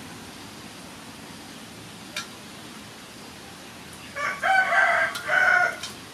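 A rooster crowing once, a loud multi-part cock-a-doodle-doo starting about four seconds in, over a steady background hiss. A short faint click about two seconds in.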